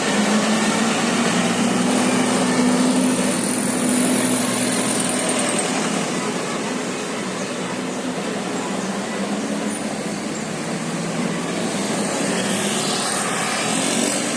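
Steady noise of road traffic, vehicle engines and tyres running on the road, with no horn tune sounding.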